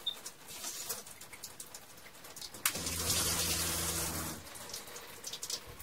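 Water from a hand-held shower head spraying and dripping onto an RV's plastic shower pan as a new single-lever shower valve is tested. About three seconds in, a steady low motor hum (the motorhome's water pump) starts suddenly with a louder rush of spray, then fades out under two seconds later.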